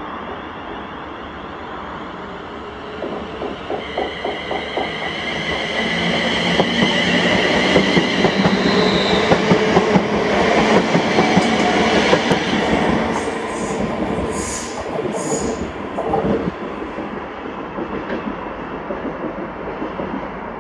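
TransPennine Express Class 350 Desiro electric multiple unit passing through the station without stopping. Its traction motors give a steady high whine that builds as it nears, and the wheels click over rail joints as the coaches go by, loudest in the middle. The sound then fades as the train moves away.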